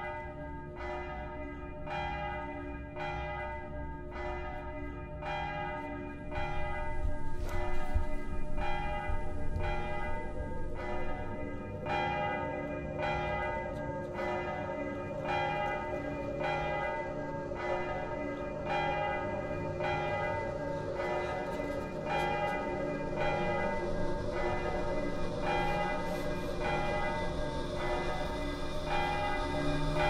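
A bell tolling at a steady pace of about one stroke a second, each stroke ringing on into the next. About six seconds in, a low, even rumble joins it and the sound grows a little louder.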